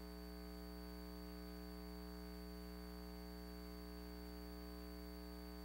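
Faint steady electrical mains hum with a thin high tone above it, unchanging throughout.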